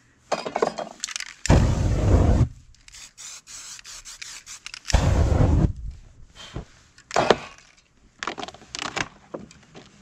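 Two loud bursts of aerosol spray about a second each, the second lit into a flame passing over the freshly sprayed paint. Clicks and rustling of the paper and cans come between the bursts and near the end.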